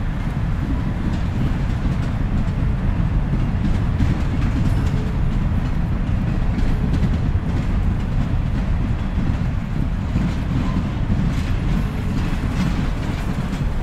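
Freight train cars (coal hoppers, a flatcar and a caboose) rolling past: a steady low rumble of steel wheels on the rails, with faint clicks.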